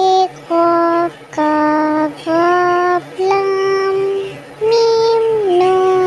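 A child's voice singing the Urdu alphabet letter names one after another, each held on a steady note for about half a second to a second, with short breaks between them, six or so in all.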